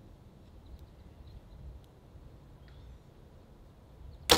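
Compound bow held at full draw, then released about four seconds in: a single sharp crack of the string and limbs as the arrow is shot.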